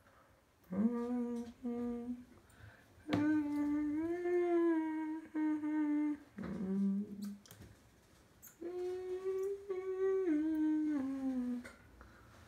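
A man humming a tune to himself in a few held, wavering phrases with short pauses between them.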